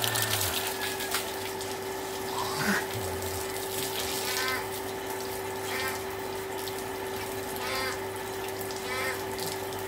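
Water gushing from a hose and splashing over a bather's body and onto the ground, with a steady hum beneath it. Short high chirps repeat about every one and a half seconds from about four seconds in.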